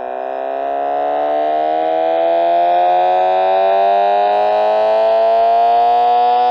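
Synthetic engine sound: a buzzy, many-toned drone that rises slowly and steadily in pitch, like an engine gradually revving up. It swells in loudness over the first second, then holds steady.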